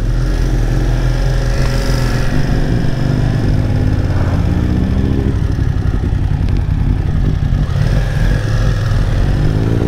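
BMW F900R's parallel-twin engine with an Arrow exhaust, running steadily under way, then rising in pitch as it accelerates near the end.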